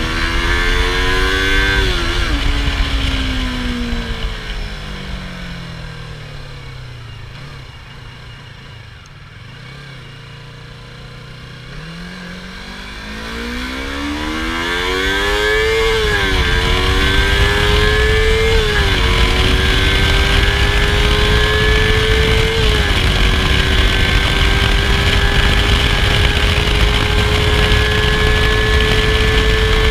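A Yamaha YZF-R25's parallel-twin engine through its stock exhaust. It pulls up through a gear change, then the revs fall away to near idle as it slows. About twelve seconds in it accelerates again, shifting up three times, then holds a steady speed with the revs slowly rising.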